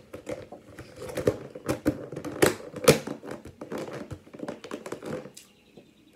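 Clear plastic lid pressed and snapped down onto a black plastic takeout container: a run of plastic clicks and crinkles, with the two sharpest snaps about two and a half and three seconds in.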